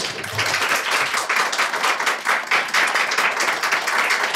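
A small seated audience applauding, with many hands clapping together in a steady, dense patter that starts abruptly.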